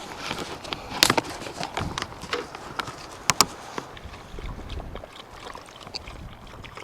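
A dog drinking water poured out for it from a bottle: splashing and lapping, mixed with sharp clicks and scuffs from handling, loudest in a double click about a third of the way in.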